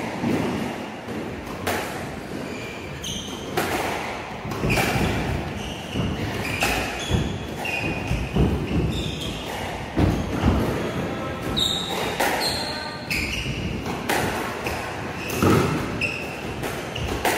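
Squash rally: the ball being struck by rackets and smacking off the court walls and floor in sharp, irregular echoing hits, with short squeaks of shoes on the wooden floor between them.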